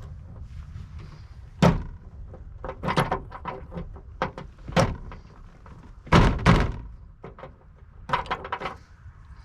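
Irregular knocks and clicks of hands working a car door's window winder handle and its retaining clip against the door trim, the loudest a double thump about six seconds in.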